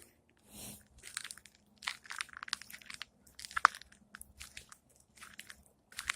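A squirrel gnawing and chewing food, a string of irregular crunches.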